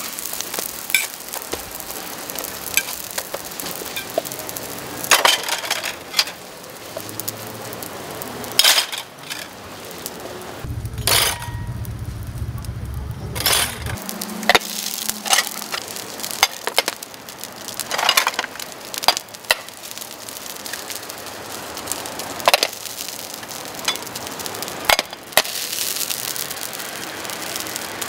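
Hotteok frying on an oiled flat griddle, a steady sizzle with repeated sharp metallic clinks as stainless-steel presses and dome lids are set down on the hot plate. About halfway through, the sizzle drops away briefly under a low hum.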